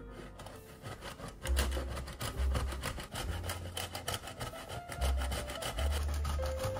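A block of Parmesan being grated on a stainless steel box grater: a quick, continuous run of rasping strokes.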